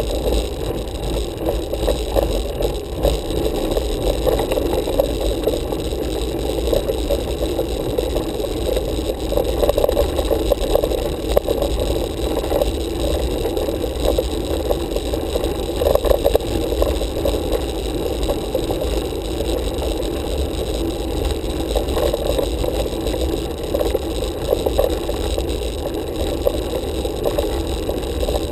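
Road bike riding uphill on asphalt, heard through a handlebar-mounted camera: a steady rumble and rattle of tyre and road vibration carried up through the bars.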